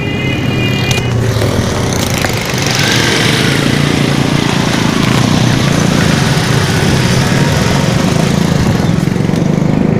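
A motor engine running close by, loud and steady, getting louder about two and a half seconds in. A brief high tone sounds in the first second.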